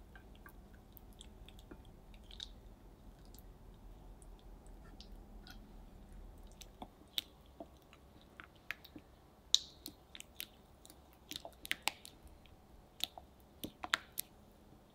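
Spatula stirring melted dark chocolate and butter in a glass bowl over a water bath: soft sticky squelches with irregular light clicks of the spatula against the glass, more frequent and louder in the second half. A faint low hum underneath fades out about halfway.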